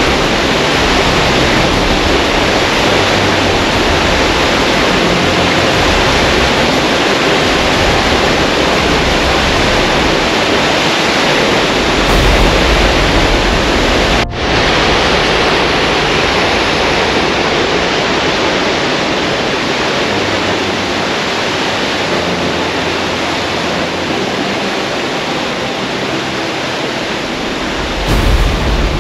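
Steady, loud rush of water pouring over a weir and churning out of an Archimedes screw turbine, with a brief break about halfway through.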